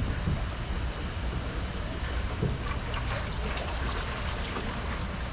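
Steady low rumble of the slow-moving ride boat, with water trickling and lapping in the boat ride's channel.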